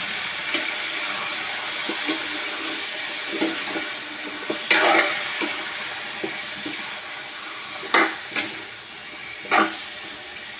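Pork hock sizzling as it fries in hot oil in a pan, a steady hiss that slowly grows quieter, with a few sharp clacks about halfway in and near the end.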